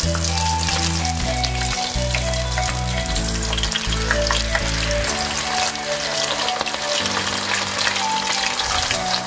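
Battered shrimp deep-frying in hot sunflower oil, a steady dense sizzle with fast crackles and pops, under background music.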